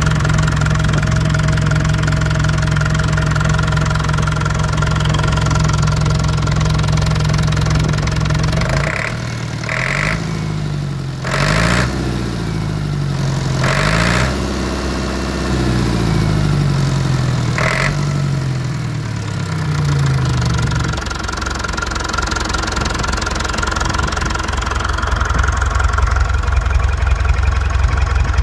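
Perkins 4.236 four-cylinder diesel engine on a test run. It runs steadily at first, then about nine seconds in its speed drops and rises several times as the throttle is worked, then it settles to a steady idle. Near the end it gets louder, with the exhaust coming out of the silencer outlet.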